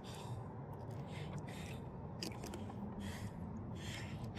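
A man breathing hard in quick gasps, about two breaths a second, winded after a long fight with a big fish. A few small clicks from handling come about two seconds in.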